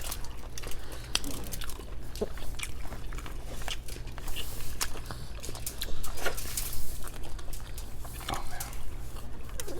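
People eating close to the microphone: chewing and biting, with many short sharp clicks and crunches scattered through it. A steady low hum runs underneath.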